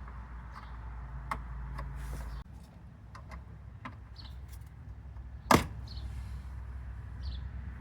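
Scattered light clicks and knocks over a low steady hum, with one sharp, loud knock about five and a half seconds in.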